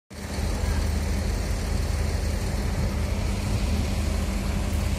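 Diesel engine of an A.L.S intercity coach running at low revs, a steady low rumble.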